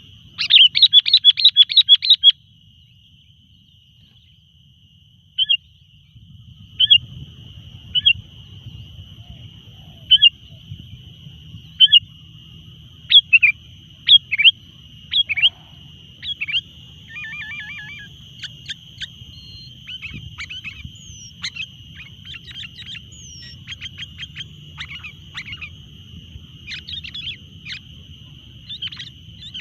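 Sooty-headed bulbul calls: a fast run of about ten loud chirps near the start, then single sharp chirps every second or two, growing into busier chattering later, over a steady high-pitched tone.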